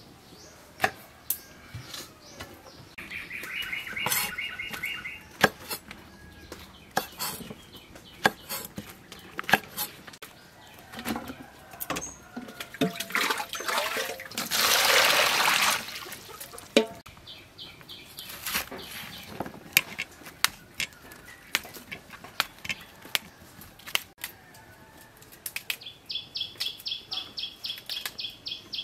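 Cleaver knocking on a thick wooden chopping board in scattered, irregular strokes as vegetables are cut. Birds chirp in rapid trills a few seconds in and again near the end, and about halfway through a rushing noise lasts about two seconds.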